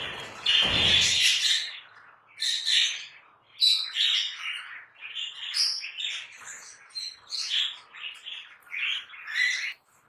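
Budgerigars chirping and squawking in short calls, about one a second. A loud rushing noise comes over the first second and a half.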